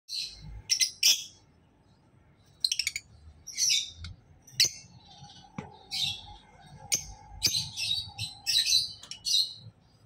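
Caged lovebirds chirping: a string of short, high-pitched calls repeated throughout, with a pause of about a second and a half near the start.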